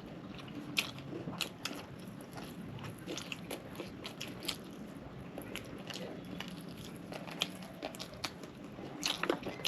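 Close-miked chewing and biting of crispy KFC fried chicken: irregular crunches and small mouth clicks.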